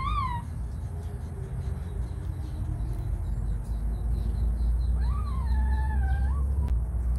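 Two whining calls from a young animal: a short rising-and-falling one at the start and a longer wavering one about five seconds in, over a steady low rumble.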